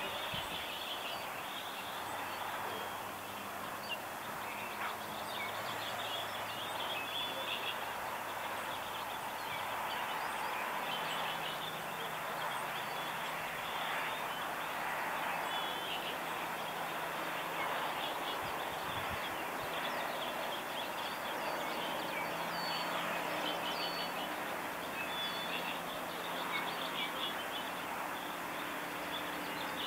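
Many small birds chirping in a dawn chorus over a steady outdoor hiss, with a faint low hum underneath.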